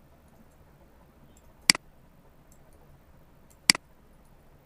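Two sharp computer mouse button clicks, about two seconds apart.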